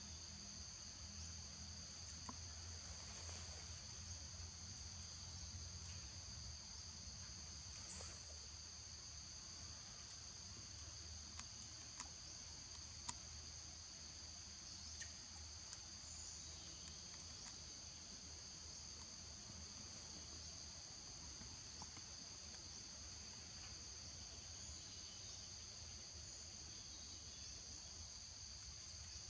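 Insects droning steadily, a high buzz held in two close pitches, over a faint low rumble, with a few soft clicks about 8 to 13 seconds in.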